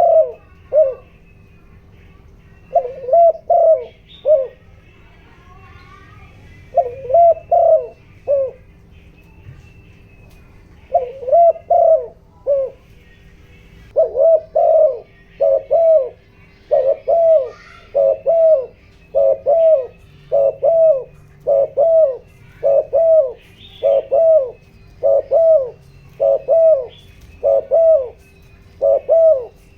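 Spotted dove cooing, the decoy's rapid 'thúc gù' lure call meant to rouse wild doves. Short phrases of three or four low coos come every few seconds at first; from about halfway they come quickly, roughly one a second. Faint chirps of small birds and a steady low hum sit behind it.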